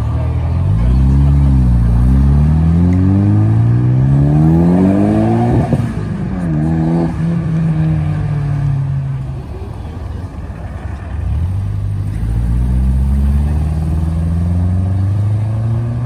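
Car engine accelerating: revs climb steadily for about four seconds, then break off sharply as if at a gear change and pick up again. After a short lull, another engine note builds and rises slowly near the end.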